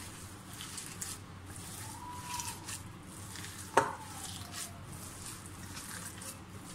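Raw chicken mince being squished and kneaded by hand with chopped onions and herbs in a bowl: a soft, wet rustling that comes and goes with the hand's strokes. One sharp click a little past halfway is the loudest sound.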